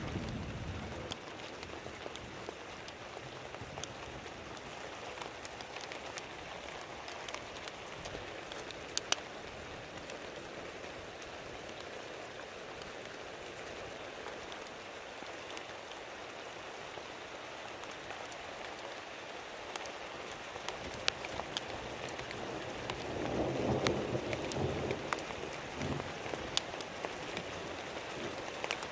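Heavy, steady rain falling on a surface, with sharp ticks of single drops. A low rumble of distant thunder swells up about three-quarters of the way through, and another rumble dies away in the first second.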